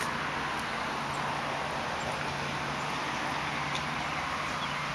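Steady outdoor background noise: an even hiss with no distinct events and only a few faint ticks.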